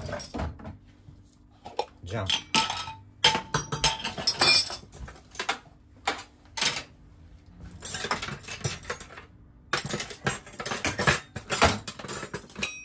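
Metal cutlery clattering and knocking against dishes as utensils are handled, in several bursts with short pauses.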